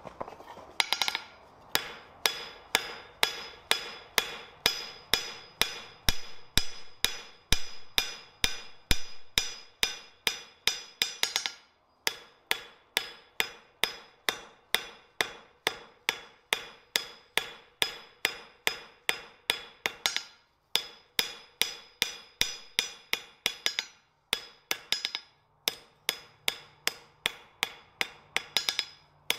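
Hand hammer striking a red-hot steel bar on an anvil in a steady rhythm of about two to three blows a second, each blow ringing. The hammering breaks off briefly about twelve seconds in and twice more later, then carries on.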